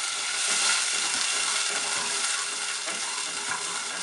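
Freshly added water sizzling in the hot oil and poppy-seed and mustard paste in a non-stick saucepan, while a wooden spatula stirs and scrapes the pan. The hiss is strongest in the first couple of seconds and eases toward the end.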